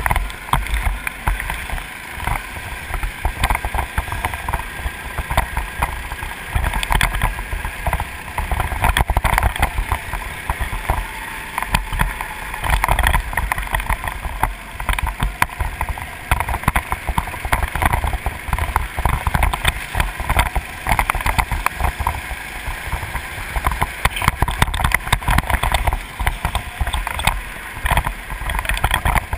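Go-kart engine running hard on track, heard from on board, with heavy wind buffeting on the microphone throughout.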